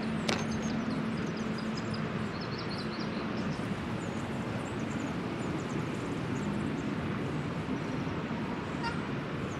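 Outdoor traffic noise: a steady hum from a passing vehicle fades out about two seconds in, over a constant background rush. Short high chirps, like birds, sound early on, and there is a single click right at the start.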